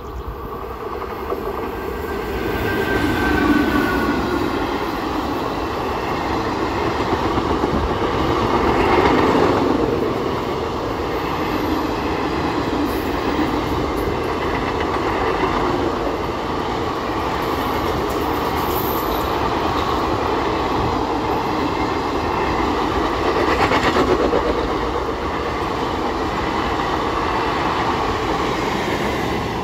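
Express passenger train hauled by a WAP4 electric locomotive passing at high speed, its coaches rushing by with continuous wheel-on-rail clatter. The sound builds over the first few seconds as the train arrives, then stays loud.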